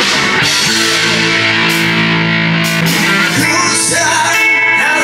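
Background music led by guitar, with steady sustained chords.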